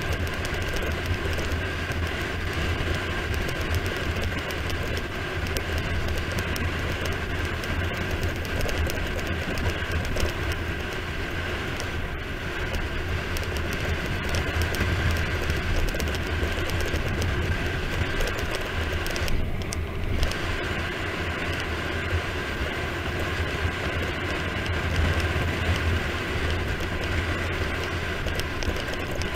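Steady wind rush and low rumble buffeting an action camera's microphone on a road bike coasting fast downhill on asphalt, with the rumble briefly easing about two-thirds of the way through.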